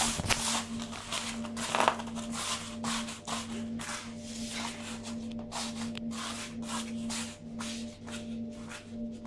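Hand-made rustling and rubbing strokes, several a second and uneven, over a steady low hum.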